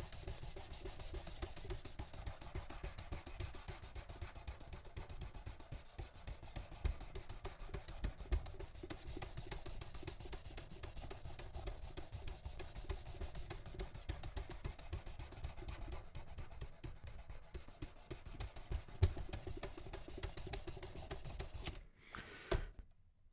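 Oiled diamond sharpening stone on a Worksharp Precision Adjust guided sharpener, rubbed back and forth along a knife's edge in steady, continuous scraping strokes. It stops about 22 seconds in.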